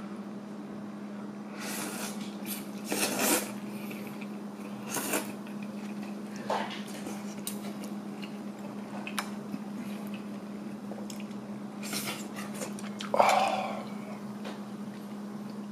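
Eating pho: noodles and broth slurped in several short bursts, the loudest near the end, with a few sharp clinks of a metal spoon against the ceramic bowl, over a steady low hum.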